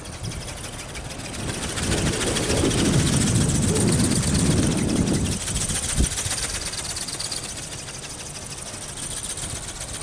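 Strong wind buffeting the microphone as a low rumble that swells for a few seconds in the middle, with a short knock about six seconds in. Under it runs a faint, steady high whine from the flying ornithopter's brushless motor and gearing.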